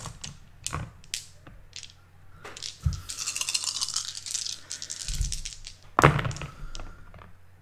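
Game dice clicking as they are handled, then rattling across the table for about two and a half seconds as they are rolled, with a sharp knock about six seconds in.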